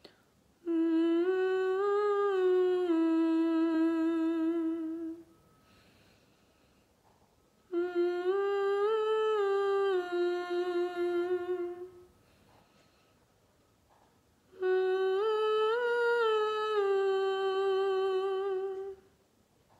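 A woman hums a vocal resonance exercise with closed lips: three sustained phrases of about four seconds each, with pauses between. Each phrase steps up in pitch and comes back down, and each starts a half step higher than the last.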